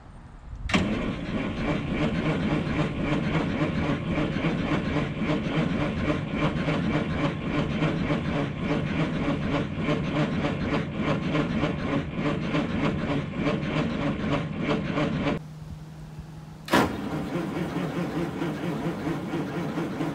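A Detroit Diesel 8V71 two-stroke V8, stone cold at 15 °F, cranking over fast on its starter without catching. It cranks for about fifteen seconds, stops briefly, then cranks again.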